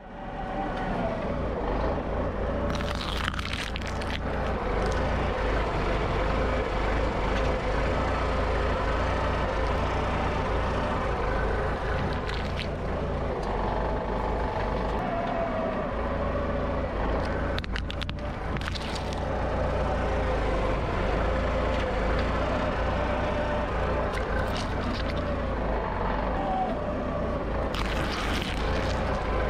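Forklift loader's engine running steadily with a low rumble and a wavering whine. Several short cracks and crunches break through it as its tyres crush vegetables.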